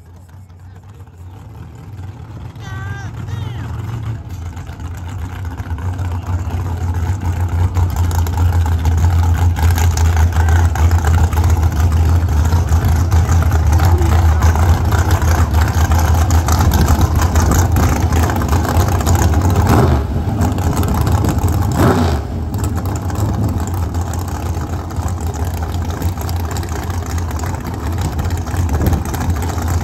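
Car engine and road noise building up over the first several seconds, then holding a steady, loud drone.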